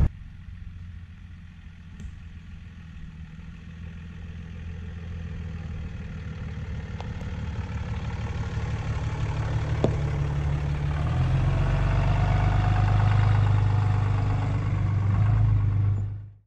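Pickup truck engine running with a steady low hum that slowly grows louder, steps up about eleven seconds in, then cuts off abruptly near the end.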